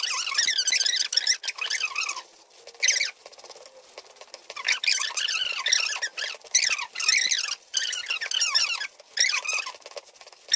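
A silicone spatula stirring thick, bubbling reduced milk (khoa) in a non-stick pan: squelching, squeaky bubbling and scraping in bursts of a second or two, stroke after stroke. The milk is at the bubbling stage where it catches on the bottom unless it is stirred constantly.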